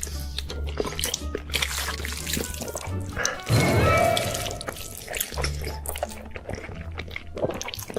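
Background music with a steady bass line over many wet clicking and smacking sounds of someone eating, with a louder noisy burst about three and a half seconds in.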